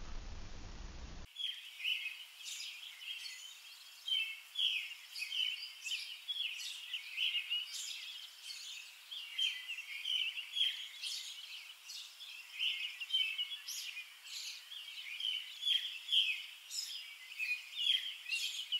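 Wild songbirds chirping and singing in quick, repeated phrases, several at once, over a faint hiss; the birdsong starts abruptly about a second in.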